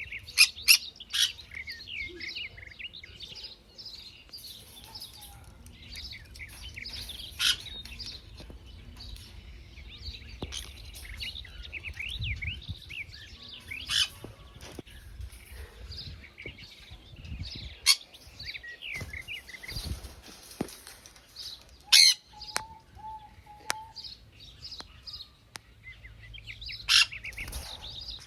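Pet conures chattering with many quick, short chirps, broken every few seconds by a sudden loud, sharp screech.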